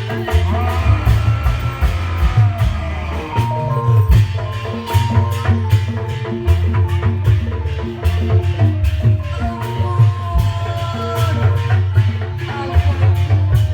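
Lively traditional-style music with a dense beat of drums and tuned percussion strikes over a steady low bass, with a melody line that slides up and down in pitch.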